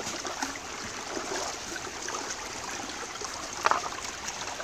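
Shallow river running over rocks, with small splashes and knocks as hands work among the stones in the water.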